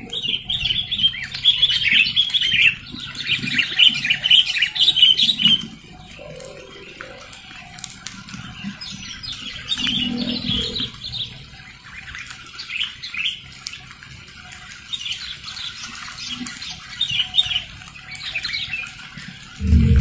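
Sooty-headed bulbuls calling in fast, chattering runs of notes. The calls are loudest and densest for the first six seconds, then come in shorter bouts, with a few low wing flutters among them.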